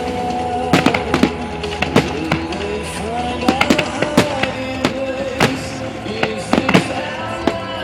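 Aerial firework shells bursting, with many sharp bangs and crackles at irregular intervals, over music that plays throughout.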